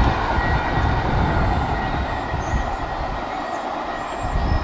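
Freight train cars rolling along the rails some way down the line: a steady rumble with faint high wheel squeal.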